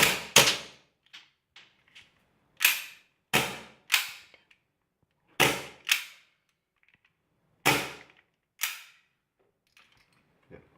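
Gas airsoft gun, its green-gas magazine charged with freon 134a, firing about nine sharp shots at an uneven pace, some in quick pairs, each with a short ringing tail.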